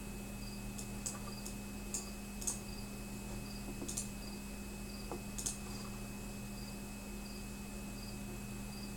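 A few scattered sharp clicks, like computer keys, over a steady electrical hum, with a faint short high chirp repeating about every two-thirds of a second.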